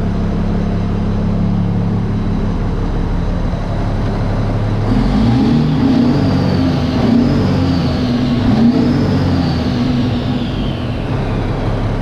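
Six-cylinder diesel engine of a Mack CV713 tractor idling, purring fine, with no misfire now that its fuel system has been bled of air. About five seconds in the sound grows louder and rougher, and a faint high whine slowly falls near the end.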